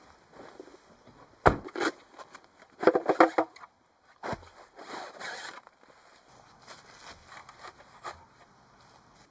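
Camping gear being handled: two sharp knocks, then a short rasping rip as the velcro flap of a fabric storage bag is pulled open. After another knock come scraping and rustling as black plastic vehicle levelling ramps are taken out of the bag and set down on grass.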